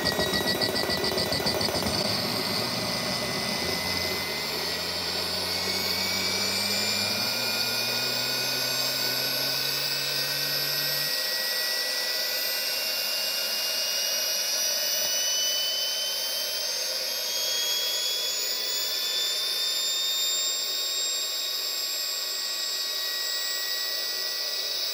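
Small hobby jet turbine running on hydrogen gas, with a steady hiss and a high whine that slowly climbs in pitch as the turbine spools. It flutters rapidly for the first couple of seconds, and a lower hum rises with it and cuts off about eleven seconds in.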